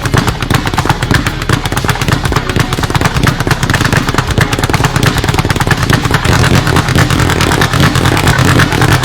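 Fists drumming in a fast roll on a hard surface: a loud, continuous rattle of many hits a second, like a drumroll.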